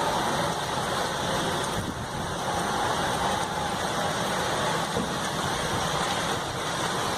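Strong storm wind blowing steadily and buffeting the microphone.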